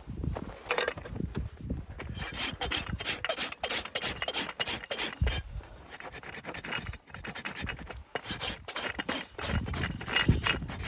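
Farrier's rasp filing a horse's hoof in a run of repeated rasping strokes, with a short pause about two thirds of the way through.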